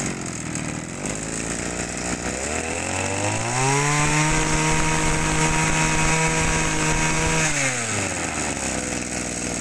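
Kioritz two-stroke brush cutter engine running just after being pull-started. It idles, is revved up to high speed for about four seconds, then drops back to idle.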